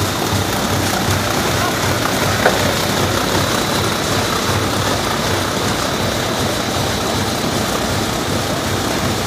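Rotary die cutter for corrugated board running: a steady mechanical din with a regular low throb from its rollers and feed, and a single sharp click about two and a half seconds in.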